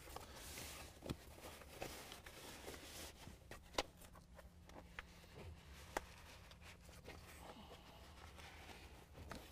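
Faint rustling of a fabric seat cover being worked over a headrest by hand, with a few light ticks and taps, the sharpest about four and six seconds in.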